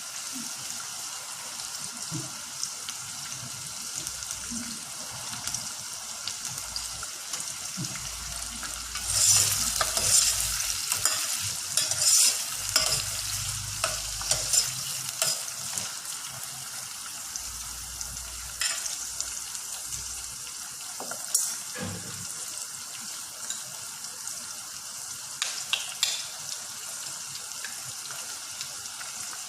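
Food sizzling in a hot frying pan while being stirred, the sizzle swelling louder for several seconds about nine seconds in, with scattered sharp clicks of the utensil against the pan.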